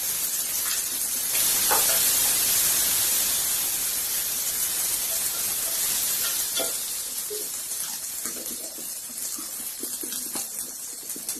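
Chicken and spices frying in hot oil in a pan: a steady sizzle that swells about a second in and slowly dies down, with a few light knocks from stirring.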